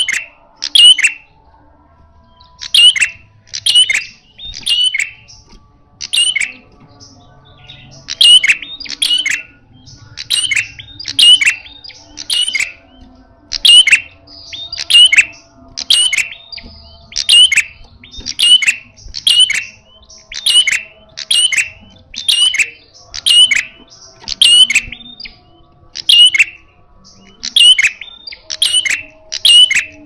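Caged prenjak (a rufous-headed tailorbird) calling loudly in its fierce 'fighting' style. Sharp, quickly falling chirps come about one to two a second, often in pairs, with a break of a few seconds about five seconds in.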